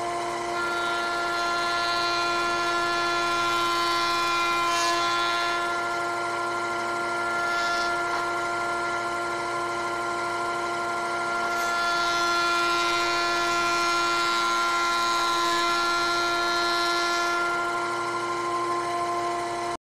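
Combination woodworking machine running as a thickness planer, with a steady motor and cutter-head whine. A board fed through its rollers brings a rougher hissing cut that swells twice: over the first few seconds and again from about twelve to seventeen seconds in.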